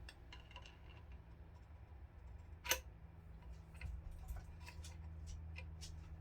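Scattered light metallic clicks and ticks as suppressor internals are turned and handled by hand, with one sharper click about two and a half seconds in, over a steady low hum.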